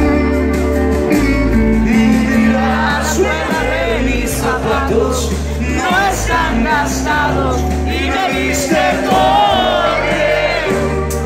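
Live rock band playing loudly: a lead vocal sung over electric guitar, bass and a drum kit with cymbals, heard through a concert hall's PA.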